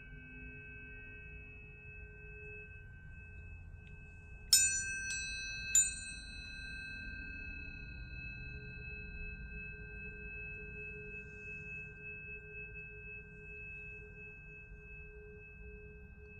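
Planetary tuning forks ringing in steady pure tones. About four and a half seconds in, forks are struck twice a little over a second apart, each strike a bright click followed by fresh ringing that slowly fades.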